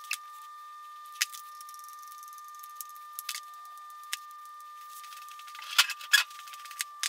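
Scattered light metallic clicks and clatter from hand work on a milling machine's head: an oil can and a hand tool at the gearbox oil fill and cover plate. A louder burst of rattling clicks comes about six seconds in, over a steady faint high-pitched tone.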